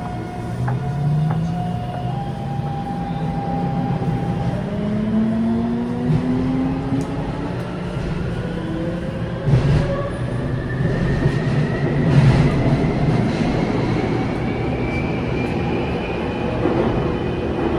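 Taipei Metro C321 subway train heard from inside the car as it pulls away from a station: the traction motors whine in several tones that climb steadily in pitch as it gathers speed, over the rumble of wheels on rail, with a couple of louder knocks about ten and twelve seconds in.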